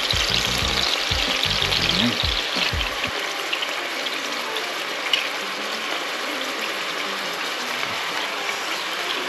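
Longganisa sausages frying in hot oil in a pan: a steady sizzling hiss with a few brief crackles.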